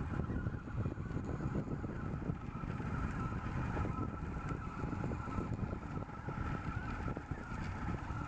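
RepRap 3DR delta 3D printer running, a steady mechanical whir of its motors with a faint thin tone held through it.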